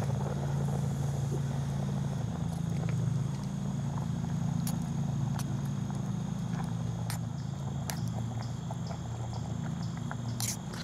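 Pot of noodles at a boil over a wood fire in a Bushbox XL twig stove: a steady low rumble, broken by a few sharp clicks and knocks, the loudest near the end.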